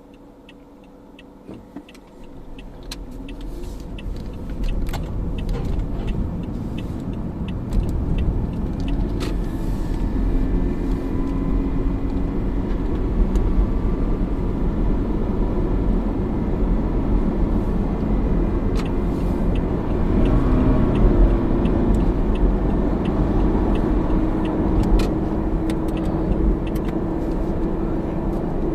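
Toyota Camry AVV50 being driven and picking up speed, its road and tyre rumble rising over the first several seconds, then running steadily. Through it runs a faint regular ticking and a hum. The faint abnormal noise from the left front is age wear in a drive-shaft bearing.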